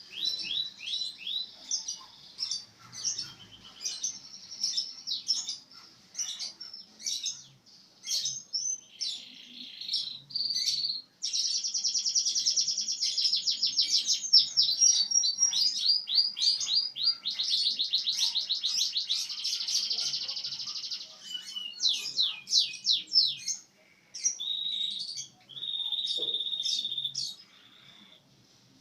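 A songbird singing constantly: runs of sharp high chirps, then long rapid trills through the middle, then short phrases and a held whistle near the end.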